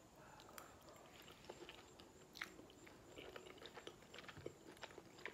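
Faint chewing of a mouthful of soft bowtie pasta in creamy Alfredo sauce: scattered small wet mouth clicks and smacks, a couple a little louder than the rest.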